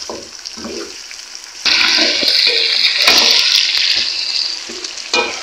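Chicken pieces frying in oil with onions and spices, stirred with a wooden spoon. About one and a half seconds in, a loud rushing hiss starts suddenly and lasts about three seconds before fading.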